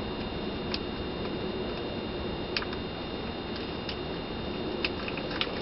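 Steady low rumble inside a stationary car's cabin, with a few scattered light ticks.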